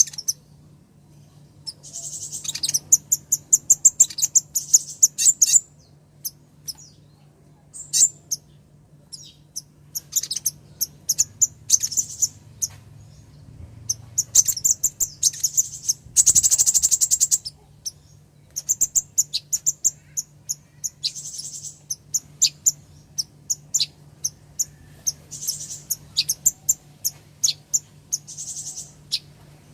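Female kolibri ninja, a small sunbird, calling to a male: runs of sharp, very high chirps broken by dense trilling bursts, the longest about two thirds of the way through. A faint steady low hum sits beneath.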